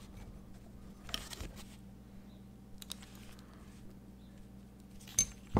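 Faint handling noises of a small drone frame, with a few light clicks and taps as plastic nuts are tightened onto the standoffs of the flight-controller stack with a nut driver; the loudest clicks come near the end.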